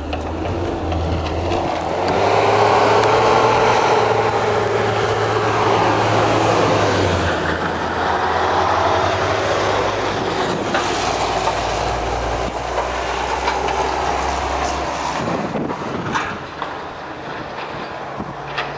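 A large vehicle's engine running, with a steady low hum that shifts in pitch a few times, under a loud rushing noise that eases off toward the end.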